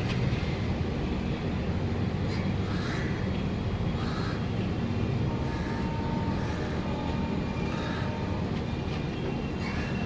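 Steady low rumble of a train, with crows cawing repeatedly over it.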